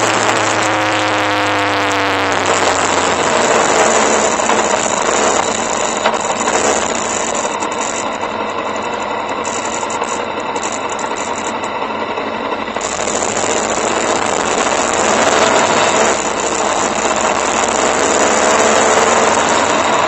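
Motorcycle riding on the road: engine running under heavy wind rush on the bike-mounted camera. The engine pitch rises over the first two seconds, and the wind noise eases for a few seconds in the middle.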